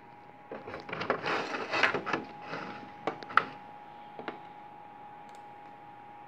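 Rubbing and knocking handling noise for about two seconds, then a few separate sharp clicks, under a faint steady whine.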